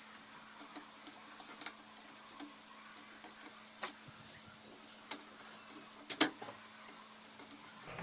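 A handful of sharp clicks and taps, as of parts and tools being handled while a TV circuit board is refitted, the loudest about three-quarters through, over a steady low hum.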